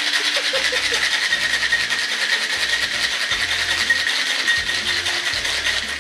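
Ice rattling inside a cocktail shaker, a steel tin capped with a mixing glass, shaken hard and fast in an even rhythm to chill the drink. It stops near the end.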